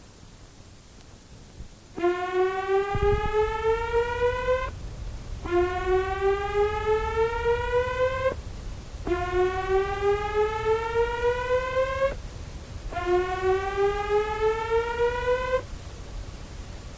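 Electronic alert siren sounding four rising tones, each sweeping up over about two and a half seconds with a short gap between, starting about two seconds in. A low rumble runs underneath from about three seconds in.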